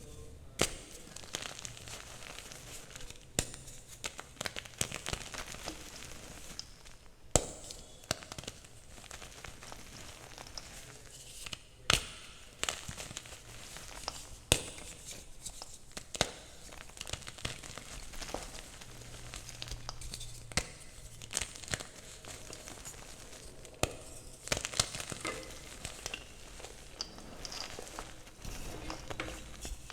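Chalk being crushed and crumbled by hand: continuous irregular crackling with several sharp snaps.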